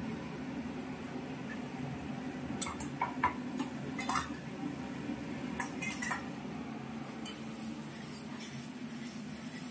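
Metal spatula scraping and clinking against a stainless steel wok as thick masala paste is stirred and fried, with a cluster of clinks in the middle and a few more a little later, over a steady low hum.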